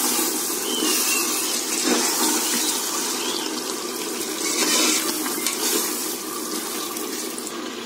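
Chicken masala frying in oil in a pressure cooker pot with a steady sizzle while a ladle stirs it. The masala has cooked to the stage where the oil separates.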